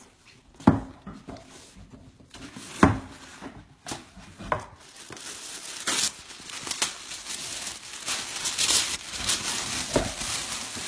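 A cardboard box being opened: two sharp cracks from the box in the first three seconds. From about five seconds in, tissue paper packing crinkles and rustles steadily as it is pulled back.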